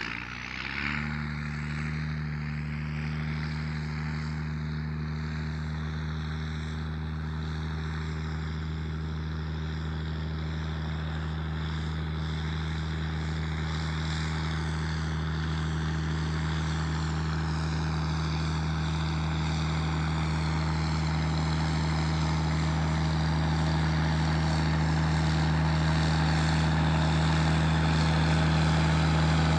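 Straight-piped Cummins 6CTA 8.3 turbo-diesel inline-six running at a steady, unchanging engine speed through its 4-inch exhaust, slowly growing louder.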